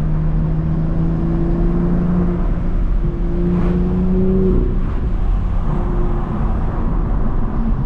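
BMW M2's N55 turbocharged straight-six pulling under acceleration, its note climbing slowly for about four and a half seconds before easing off, with turbo noise made louder by a K&N drop-in intake filter, over steady road rumble.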